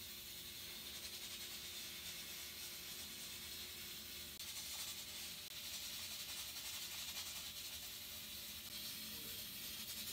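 Faint steady hiss of room tone, with no clear event standing out.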